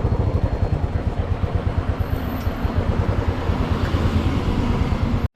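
Motorcycle engine running under way with a rapid low pulsing, under a steady rushing noise. It cuts off abruptly near the end.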